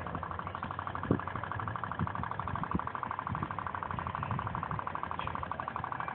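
Toy pop pop boat's little steam engine running: a rapid, even putt-putt pulsing from its candle-heated boiler, with a few dull low thumps along the way.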